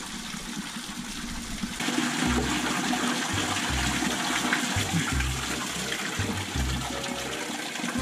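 Water pouring and splashing over a person taking an improvised bath, starting to rush about two seconds in and running on in a steady gush, with uneven low rumbles underneath.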